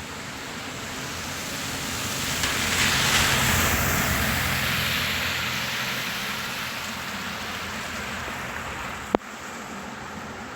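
Steady rain, with a louder rushing hiss and low rumble that swell about three seconds in and fade away over several seconds; one sharp click near the end.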